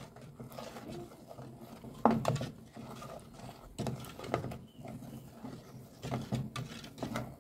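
A spoon stirring melting sugar in an aluminium pudding mould, scraping round the pan and knocking against the metal at irregular moments, one knock about two seconds in sharper than the rest.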